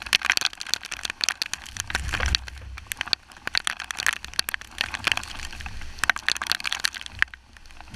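Tropical-storm rain: a steady hiss of rainfall with raindrops striking the GoPro's housing as sharp, irregular ticks. A low rumble swells about two seconds in and again near six seconds.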